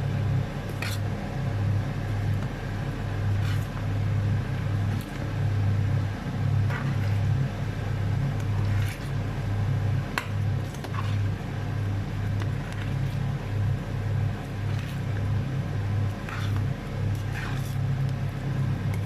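Rice frying in oil in a pot, with scattered short clicks of a spoon against the pot, over a loud, steady low rumble.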